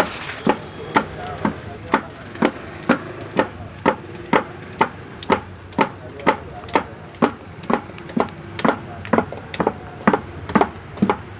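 Steady rhythmic chopping, a blade striking a wooden chopping board about twice a second with sharp, even knocks.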